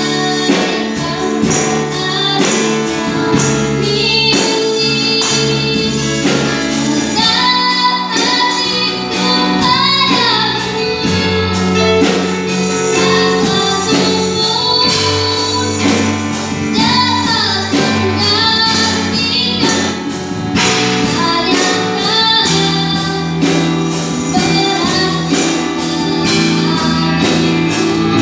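Music: a song with a singing voice over sustained chords, a bass line and a regular percussion beat.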